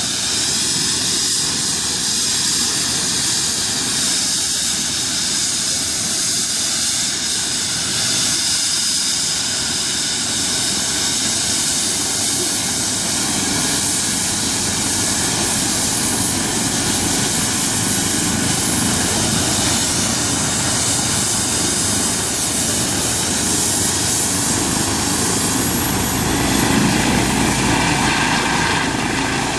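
Eurocopter EC135 air-ambulance helicopter running on the ground with its rotors turning: a steady high turbine whine over the thrum of the rotor blades. In the last few seconds the whine climbs in pitch and the rotor noise grows louder and deeper as it powers up for takeoff.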